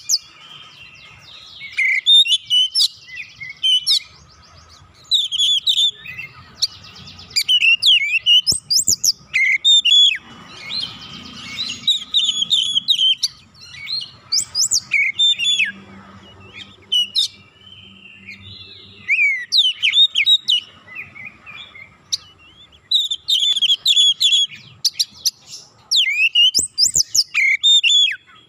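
Oriental magpie-robin singing loudly: a fast, dense stream of varied whistles, sharp rising and falling sweeps and chattering notes, in phrases broken by short pauses.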